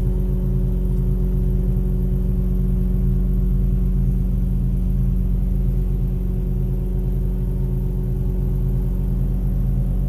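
Massey Ferguson 27 combine harvester's engine running at a steady speed, a constant low drone heard from inside the cab.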